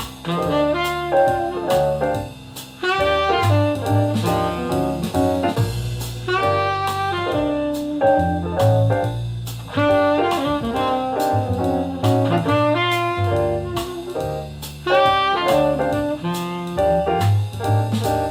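Jazz instrumental with a lead saxophone over a stepping bass line and a steady drum-kit beat, played through a JVC component stereo system.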